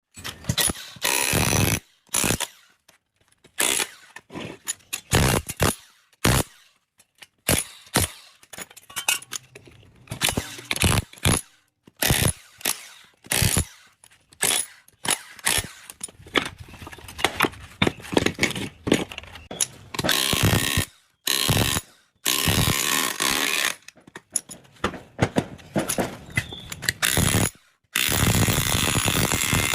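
Tool work on a three-phase induction motor being taken apart: a string of metal knocks and clanks, with several longer bursts of a power tool or ratchet running.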